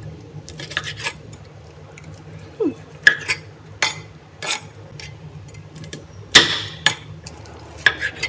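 Kitchen knife slicing crispy-skinned roast pork belly on a wooden chopping board: a series of about eight sharp knocks and crunches as the blade cuts through the crackling and strikes the board, the loudest about six seconds in.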